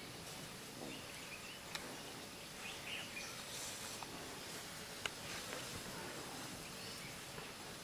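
Faint bush ambience with scattered bird chirps and a few sharp twig snaps, the loudest about two seconds and five seconds in, as African elephants strip leaves from branches close by.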